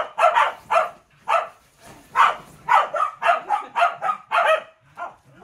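Welsh Corgis barking in a rapid run of short, sharp barks, about a dozen in a few seconds. It is alert barking at a figure they don't recognise.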